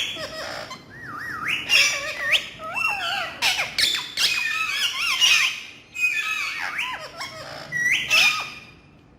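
A pet parrot chattering and squawking: a string of warbling, pitch-sliding calls mixed with harsh screeches. There is a short break about six seconds in, and the calls stop near the end.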